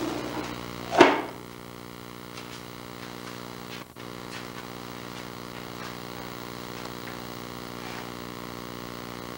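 A ring-necked parakeet gives one short, loud squawk about a second in; after it there is only a steady hum with a few faint clicks.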